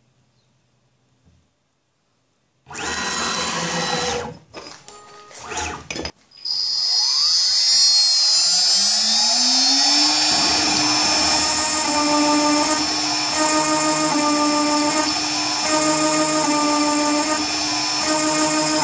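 CNC router spindle spinning up with a rising whine and settling into a steady high whine at about 18,000 rpm, with tones that cut in and out in a regular rhythm as the machine moves. A single-flute carbide endmill starts milling the aluminium plate. The first couple of seconds are near silent, followed by a few seconds of uneven mechanical noise.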